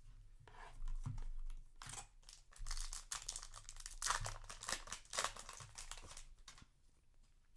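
Foil wrapper of a trading-card booster pack crinkling and being torn open, a dense run of crackles and rips that fades out near the end.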